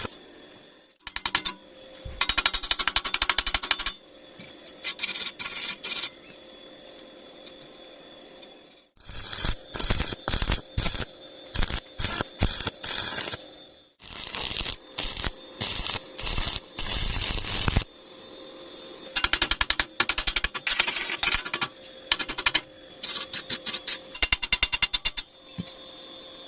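Stick (SMAW) welding arc crackling in repeated runs of one to four seconds with short pauses between, some runs broken into quick short strikes, as cast iron is welded to a solid square steel tube.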